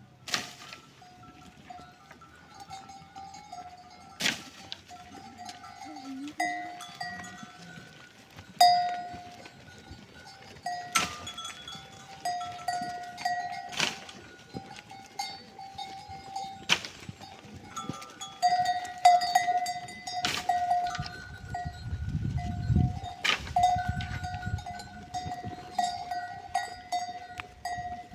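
Bells on grazing livestock clinking and ringing almost without pause, swelling and fading as the animals move, with sharp knocks every few seconds.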